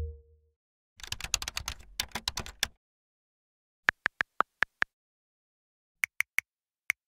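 Short infographic sound effects in sequence: a fast clatter of clicks about a second in, then six quick pitched blips, then three more blips and a single last one near the end.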